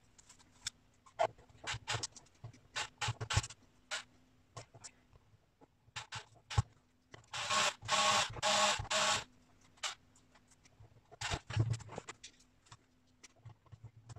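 Small clicks and knocks of screws and plastic parts being handled, then, a little past the middle, a cordless drill-driver whirs in a few short pulses as it drives a screw into a 3D-printed plastic box.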